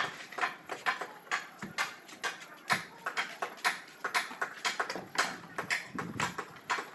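Mason's trowel working cement plaster on a wall: short scraping strokes repeating about two times a second.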